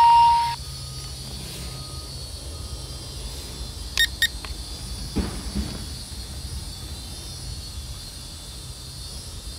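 A loud electronic beep held for about half a second, then wind and outdoor background noise with a faint steady low hum. About four seconds in come two short high beeps, followed a second later by a soft thump.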